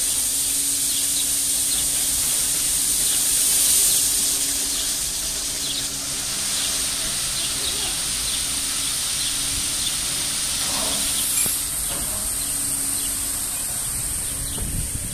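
Automatic rollover car wash spraying a car: a steady, high-pitched hiss of water and foam jets from the gantry's nozzles, with a faint low hum from the wash machinery that comes and goes. The hiss drops off about eleven seconds in.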